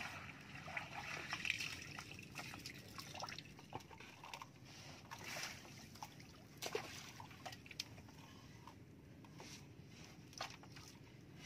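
Water trickling and sloshing around a netted fish pen, with scattered small splashes and light clicks.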